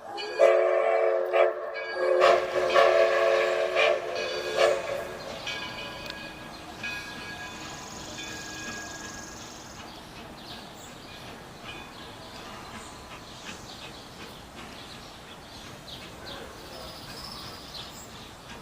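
Steam locomotive's whistle blowing a chord in two long blasts within the first five seconds, then a fainter steady noise of the train running.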